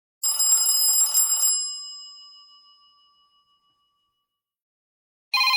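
Android phone ringtones: a short, trilling telephone-bell-style ring that fades out over about two seconds, then a pause. Near the end another trilling, bell-like electronic ring starts.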